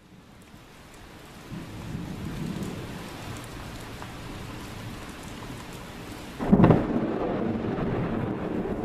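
Thunderstorm: rolling thunder with steady rain that fades in and swells, then a sharp, loud thunderclap about six and a half seconds in, followed by more rumbling.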